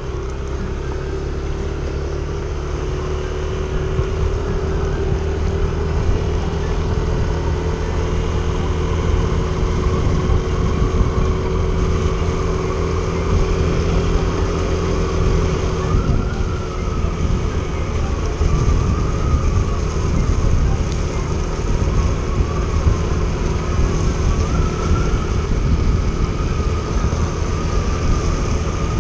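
Yamaha Aerox single-cylinder scooter engine running steadily under way, with wind and road noise on the microphone. A higher, wavering whine joins about halfway through.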